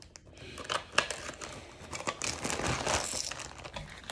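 Clear plastic makeup pouch crinkling and rustling as it is handled and rummaged through, with a sharp click about a second in.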